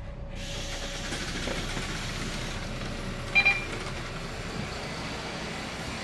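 Steady running noise and hiss inside a public bus as a passenger walks to the door and steps off. About three and a half seconds in there is a short, sharp double electronic beep.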